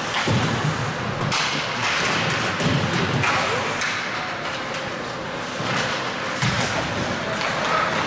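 Ice hockey game noise in a rink: a steady hiss of play on the ice with several dull thumps and a few sharp knocks.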